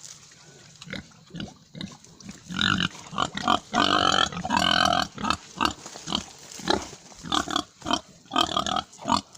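Pigs squealing loudly for about two seconds, followed by shorter squeals and grunts.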